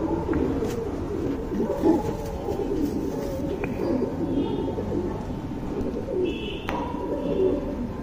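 Domestic pigeons cooing, low coos overlapping one another.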